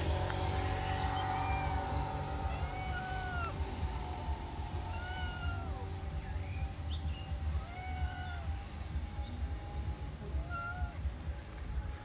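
A tabby cat up in a tree giving a series of drawn-out meows, each rising and then falling in pitch, about every two seconds. The cat is what the uploader calls angry.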